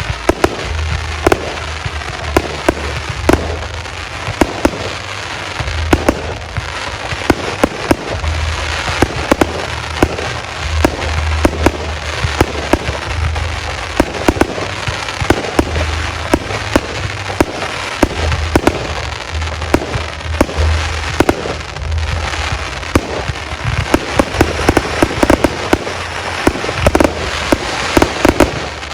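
Aerial fireworks display: a continuous barrage of sharp shell bursts and firecracker-like reports, dozens of bangs over a dense crackling hiss.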